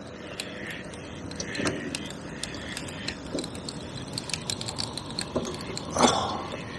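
Fishing reel's drag clicking in irregular runs as a hooked fish pulls line off against it, with a louder knock about six seconds in, over the steady rush of a fast river.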